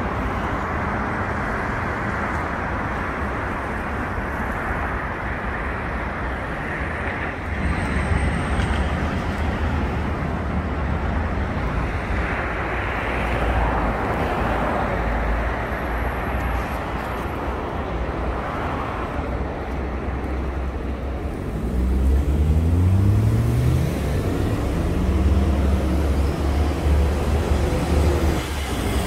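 Road traffic passing as a steady wash of car noise. About two-thirds of the way through, one vehicle's engine accelerates, its pitch rising.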